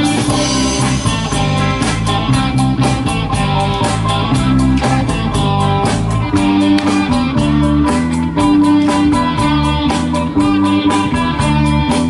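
Country-rock song in an instrumental stretch with no singing: guitar over a bass line and a steady drum beat.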